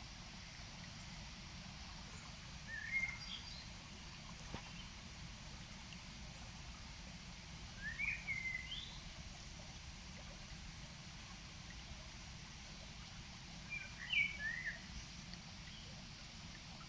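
A river running steadily, with a songbird giving three short phrases of quick chirping notes about five seconds apart.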